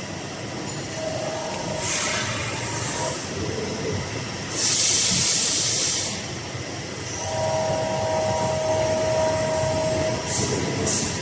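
Hydraulic CNC press brake running: a steady mechanical hum with hissing surges about 2 s in and again from about 4.5 to 6 s. A steady whine follows from about 7 to 10 s.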